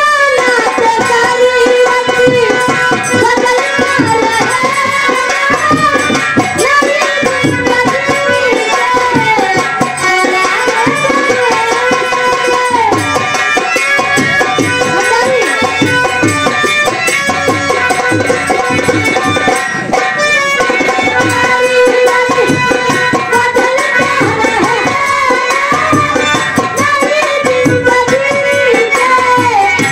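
Live ghazal performance through a stage PA: tabla drumming under a woman's gliding sung melody, with instrumental accompaniment.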